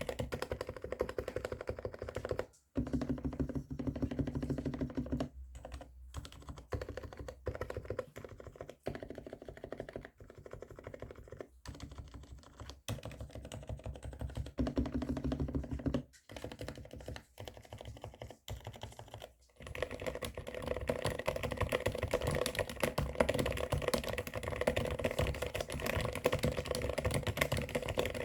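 Fast typing on a mechanical keyboard fitted with Cherry MX Silent Black linear switches (65 g): muted, scratchy keystrokes that the typist likens to an electrocapacitive (Topre-style) keyboard. There are a few brief pauses, and the typing gets louder about two-thirds of the way through.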